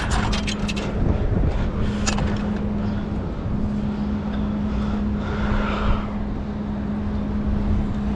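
A steady low engine hum, with wind rumbling on the microphone and a few light knocks near the start and about two seconds in.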